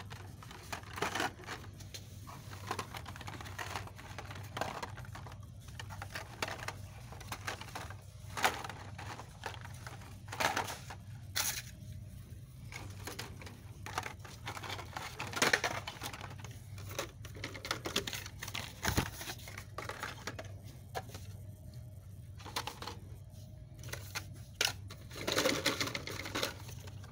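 Blister-card packs of die-cast toy cars clicking and rattling against each other and their peg hooks as they are flipped through, in irregular taps, over a steady low hum.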